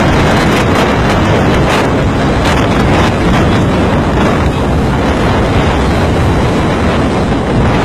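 Loud, steady rush of wind and rough sea around a fishing boat, with wind buffeting the microphone.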